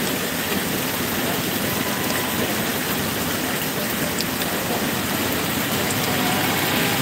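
Heavy rain pouring down, a steady hiss of drops hitting the wet road and pavement, with a motor vehicle driving through the water on the road.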